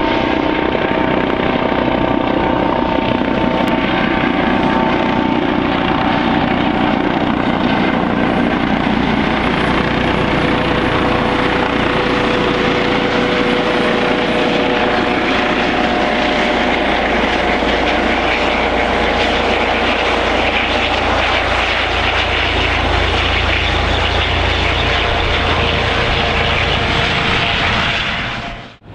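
Eurocopter EC155 helicopter's twin turboshaft engines and main rotor running as it approaches and rolls along the runway on its wheels in a rolling landing. Steady whining tones sit over the rotor noise in the first half and fade, while a low rumble grows in the second half; the sound dips away sharply near the end.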